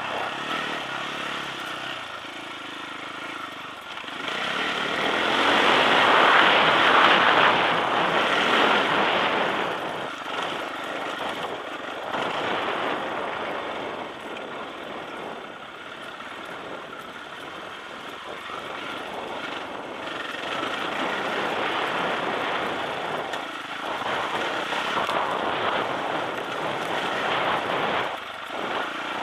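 Sherco enduro motorcycle ridden over a rough dirt trail, the engine rising and falling with the throttle under a rush of wind on the microphone. It is loudest a few seconds in and picks up again past the middle.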